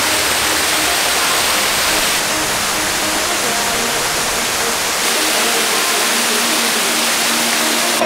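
Water of a waterfall rushing down over rock steps: a steady, dense hiss. Its tone shifts slightly about two seconds in and again about five seconds in.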